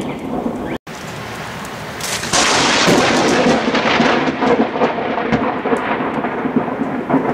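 Thunder rumbling through a thunderstorm, broken by a brief gap about a second in; about two seconds in a louder, crackling peal of thunder sets in and keeps going until it cuts off.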